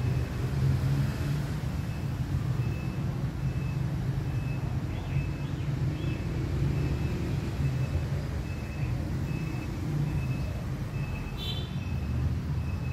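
Steady low engine rumble, with a short high beep repeating at an even pace through most of it and a brief higher chirp near the end.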